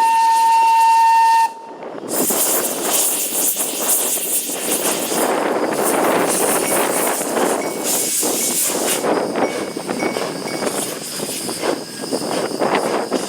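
Steam locomotive whistle sounding one steady note that cuts off about a second and a half in, followed by a continuous hiss of escaping steam.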